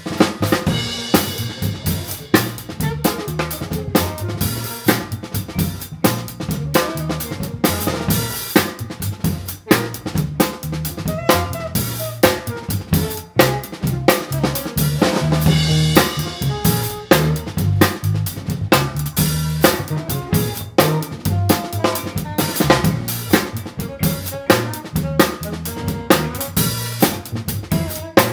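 Drum kit played hard in a funk groove and heard close up, its strikes loudest, over the rest of the band's bass notes and melodic lines.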